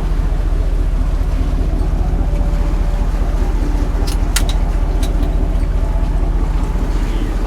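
Boat engine running steadily at a constant pitch, with a few sharp clicks about four seconds in.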